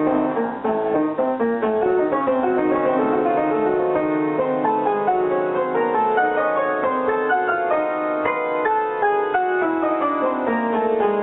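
Piano music played in quick, cascading runs of notes sweeping up and down the keyboard.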